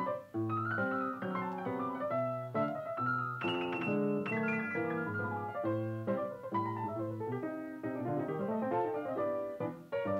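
Background piano music: a gentle melody of struck notes over a flowing accompaniment.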